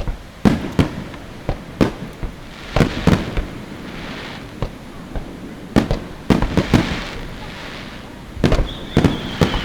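Aerial fireworks bursting in a rapid, irregular series of sharp bangs, with crackling after several of them. Near the end a long whistle begins and slowly falls in pitch.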